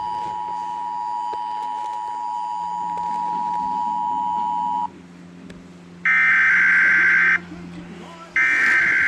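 Emergency Alert System alarm: the steady two-tone attention signal, cutting off abruptly about five seconds in. About a second later come two harsh, screeching bursts of digital header data, each just over a second long and a second apart.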